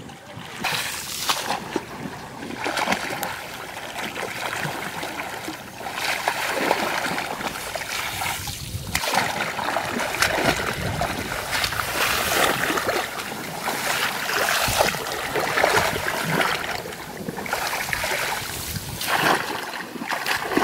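Irregular splashing and sloshing of shallow muddy water as hands grope and churn through it, keeping up almost without pause.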